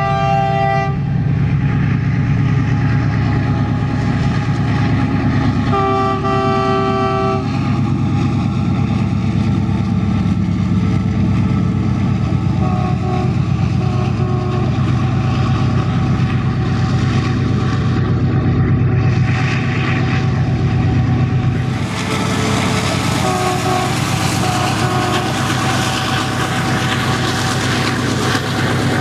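WDG-6G (GE ES58ACmi) diesel-electric freight locomotive passing under load, its turbocharged 16-cylinder four-stroke engine giving a steady low drone. Its multi-tone horn sounds a long chord at the start and another about six seconds in, then fainter short notes twice later. From about two-thirds of the way through, the wagons rolling over the rails add a hiss and clatter.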